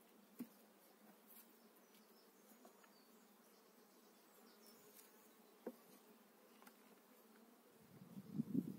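Honeybees buzzing faintly and steadily around an open hive, the hum swelling loudly near the end as a bee flies close. Two sharp clicks, about five seconds apart, come from the metal hive tool against the wooden frames.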